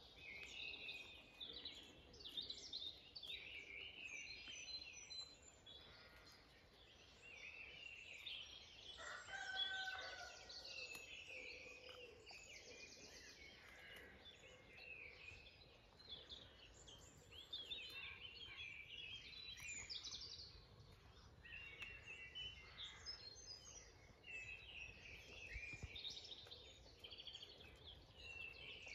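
Several birds singing in a faint mixed chorus of chirps and warbles, with one louder, lower rattling call about ten seconds in.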